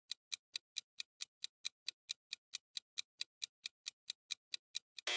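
Clock-style ticking sound effect counting down a quiz answer timer: short, even ticks at about four to five a second. A louder sound effect cuts in at the very end.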